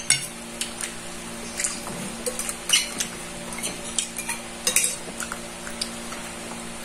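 A metal spoon clinking and scraping against a ceramic bowl during a meal: scattered light clinks, a few sharper ones about halfway through, over a steady low hum.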